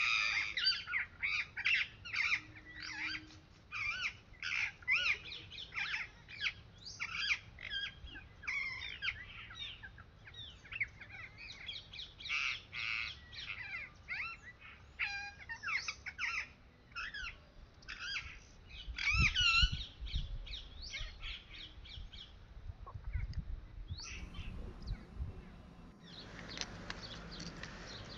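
Many birds calling and chirping rapidly, short sharp notes and gliding calls overlapping. Near the end the birdsong thins and a steady rushing noise builds.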